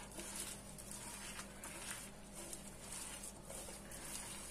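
Gloved hand rubbing and squeezing a crumbly mix of chopped dates, hazelnuts and shredded coconut in a glass bowl: faint, irregular rustling, over a steady low hum.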